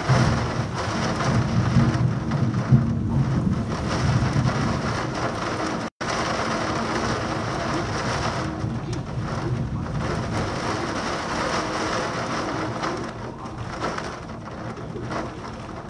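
Heavy thunderstorm rain pouring down steadily, with a low rumble of thunder over the first few seconds. The sound cuts out for a split second about six seconds in.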